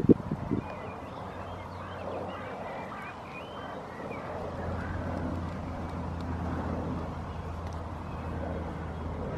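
Outdoor ambience: a steady low rumble of distant traffic that grows a little stronger about halfway through, with small birds chirping over the first few seconds and a brief buffet of wind on the microphone right at the start.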